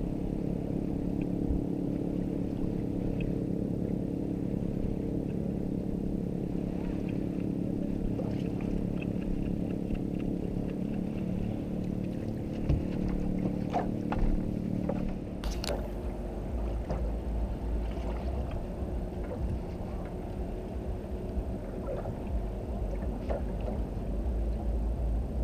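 Boat motor running with a steady hum. Just past halfway there is a sharp click, and the hum gives way to a lower rumble.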